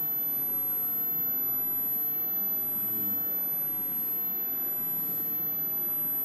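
A steady high-pitched test tone played loud through speakers, holding one unbroken pitch over a faint hiss.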